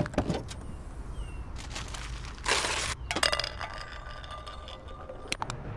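Metal tin cans dropping onto pavement: a sharp hit, a short crash about two and a half seconds in, then cans clinking with a ringing tone as they strike and roll.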